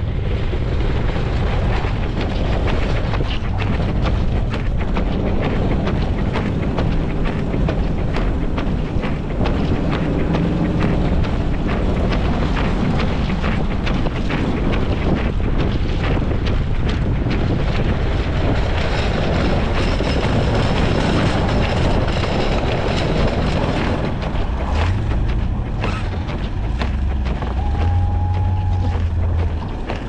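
Snowplow pickup truck running steadily with heavy wind noise, a dense rushing rumble with many small clicks. The engine note shifts near the end.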